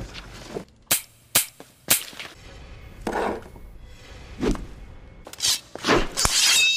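Sound-effect montage: three sharp gunshot-like cracks about half a second apart, followed by several swelling noise sweeps.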